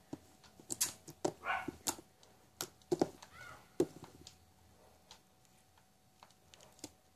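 Icy, jiggly-textured slime being squeezed and stretched by hand, giving a string of sharp wet clicks and pops, thickest in the first four seconds and sparser after.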